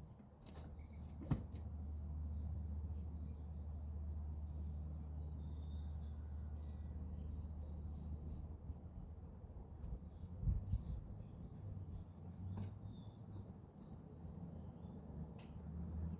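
Small birds chirping and twittering throughout in short, high calls, over a steady low rumble. A few sharp clicks and a low thump stand out now and then.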